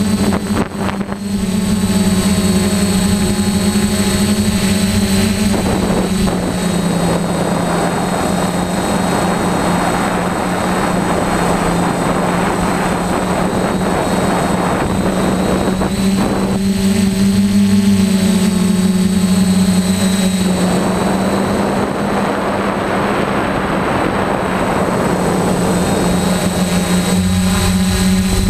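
DJI F450 quadcopter's four electric motors and propellers buzzing steadily in flight, with a faint high whine above the buzz. Close to the mounted camera, a rushing noise comes in over the buzz for two long stretches, then fades back.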